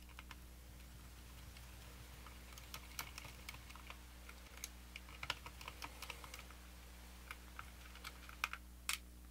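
Hand screwdriver backing small screws out of a plastic guitar pickguard: faint, irregular light clicks and ticks, with a slightly louder click near the end.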